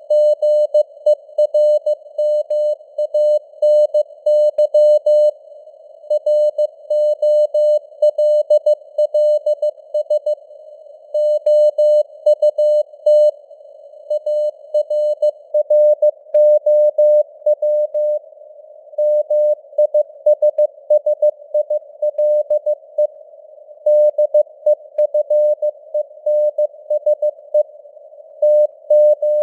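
Morse code (CW) sent at 15 words per minute: a single steady beep keyed on and off in dots and dashes, with short pauses between words. The beep sits in a narrow band of simulated radio hiss that fills the gaps between elements.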